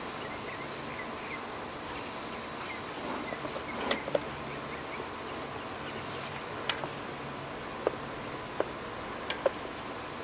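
Honeybees buzzing at an opened hive, a steady low hum from a colony calmed with smoke, with a few short clicks scattered through.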